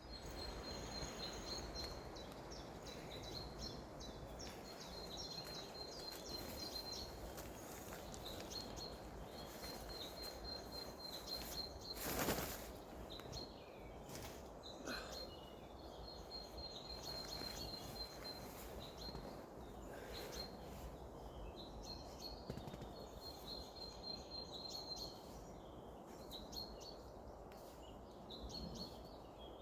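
Outdoor ambience: a small bird singing runs of short high chirps again and again over a steady low rush, with one brief louder rush about twelve seconds in.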